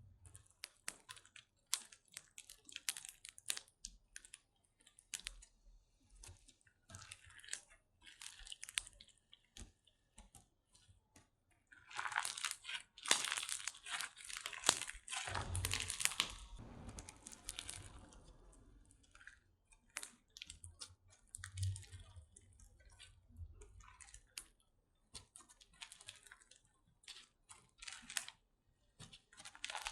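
Slime being squished and stretched by hand, making a run of small sticky clicks and crackling pops. The crackling is thickest and loudest from about twelve to seventeen seconds in.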